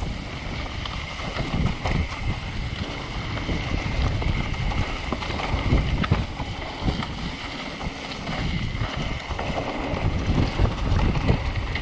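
Mountain bike descending a dirt trail strewn with dry leaves: wind rushing over the microphone and tyres rolling over the ground, with frequent knocks and rattles as the bike goes over bumps.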